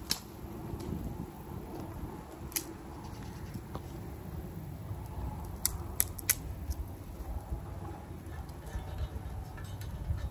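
Wood burning in a homemade rocket stove, giving scattered sharp pops and crackles, three of them close together about six seconds in, over a steady low rumble.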